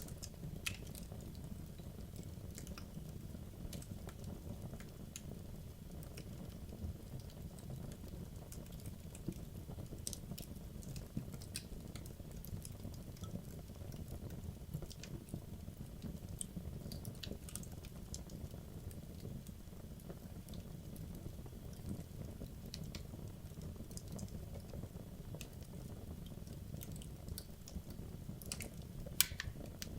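Wood logs burning in a fireplace: a steady low rumble of flame under scattered sharp crackles and pops, with one louder pop near the end.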